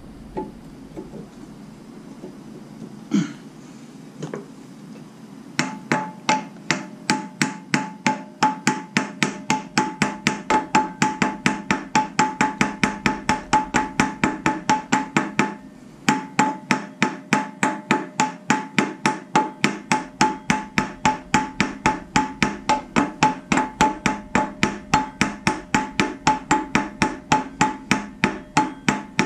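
Small sledgehammer striking the hub of a Jeep 4.0 inline-six's harmonic balancer, driving it onto the crankshaft. Two single knocks, then from about six seconds in a steady run of metallic blows, about three a second, with a ringing tone. There is a short break about sixteen seconds in before the blows go on.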